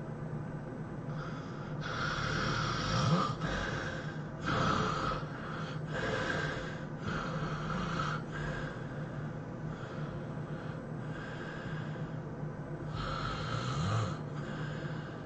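A person snoring in their sleep: a run of noisy snores coming about every second or so, easing off for a few seconds in the middle before picking up again.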